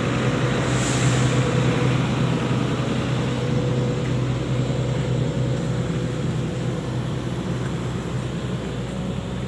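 Hydraulic excavator's diesel engine running steadily at close range, a low even drone.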